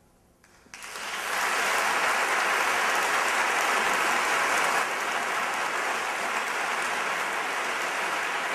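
Audience applause breaking out suddenly about a second in, after a moment of near silence, then continuing steadily.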